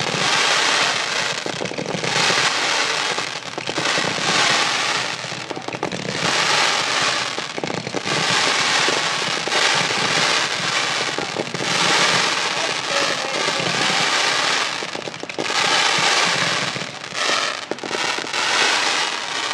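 Fireworks finale: a dense, nonstop barrage of aerial shell bursts and crackling, swelling and easing in waves without a break.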